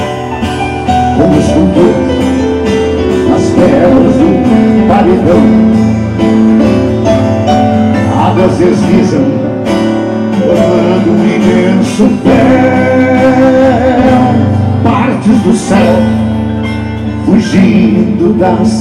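Live acoustic band playing the instrumental passage of a slow gaúcho ballad: acoustic guitars and keyboard, in a steady flow of sustained chords with a melody line over them.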